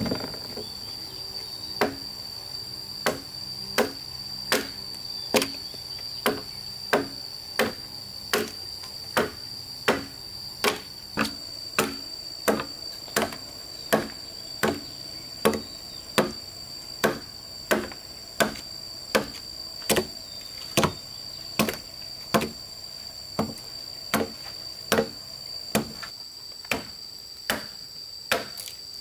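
Regular blows of a tool striking wood, about three every two seconds, each a sharp knock, over a steady high-pitched insect drone.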